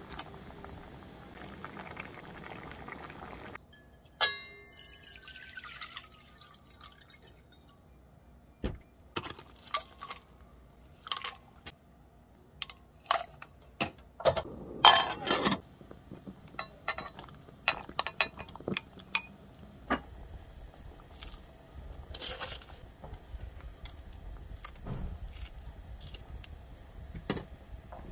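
Pot cooking on a gas stove: a stew bubbling at first, then a run of knocks and clinks as frozen vegetable pieces and water go into a stainless steel pot, with a louder splash of pouring about halfway. A low steady rumble of the pot heating follows near the end.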